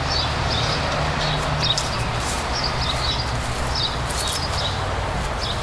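Small birds chirping, short high calls repeated every half second or so, over a steady background hiss and low hum.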